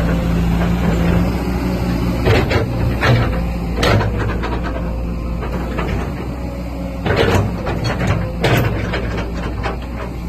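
Caterpillar 315D tracked excavator's diesel engine running steadily, with several sharp metallic clanks at irregular moments as the machine works.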